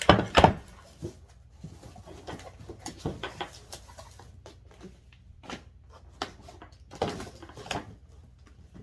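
Unpacking handling sounds: irregular knocks, clunks and rustles as a circular saw and its cardboard packaging are moved about. The loudest knocks come right at the start, with another cluster about seven seconds in.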